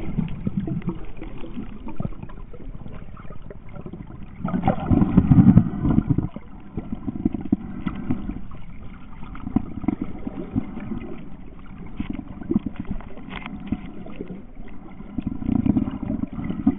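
Muffled underwater rumble of water moving around a submerged camera, with scattered small clicks and louder surges about four to six seconds in and again near the end.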